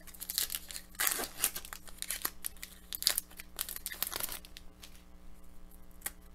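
An Upper Deck hockey card pack wrapper being torn open and crinkled: a run of crackling rustles for about the first four seconds, loudest about a second in, then only faint rustles.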